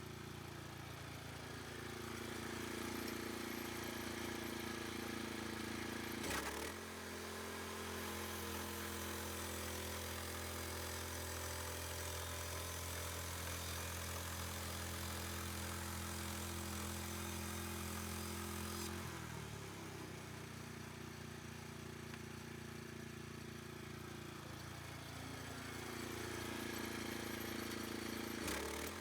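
Portable sawmill's engine running steadily while cutting lap siding from a pine cant. Its pitch changes abruptly about six seconds in, again past the middle, and once more near the end.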